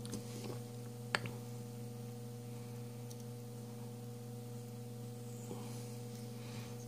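Steady low electrical hum, with a single sharp click about a second in and a few faint ticks.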